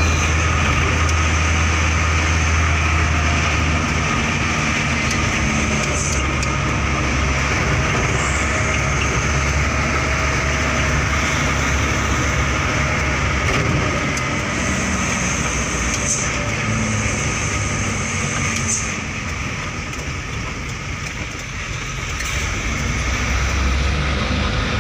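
Mitsubishi Canter light truck's diesel engine running under way, heard from inside the cab as a steady low drone. It eases off briefly about three-quarters of the way through, then pulls again.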